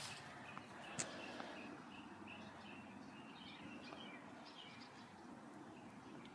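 Faint birds chirping, many short repeated calls, over a quiet outdoor background hiss, with a single sharp click about a second in.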